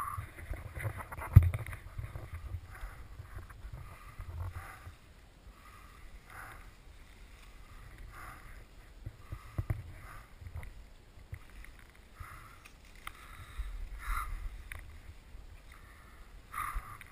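Wind buffeting a helmet camera's microphone, a low uneven rumble, with faint rustles and a few knocks from the wearer's gear, the sharpest about a second and a half in.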